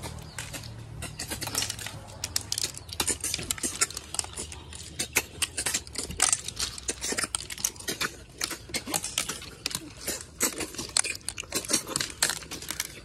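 Rapid slurping and sucking as cooked snails are eaten straight from their shells, with many quick clicks of shells clinking against steel plates and each other.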